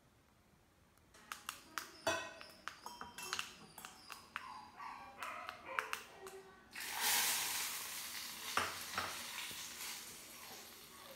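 A tempering of seeds and dried red chillies crackling in hot oil in a small pan, a run of sharp irregular pops. About seven seconds in, a sudden loud sizzle as the hot tempering is poured into the rasam, fading slowly over the following seconds.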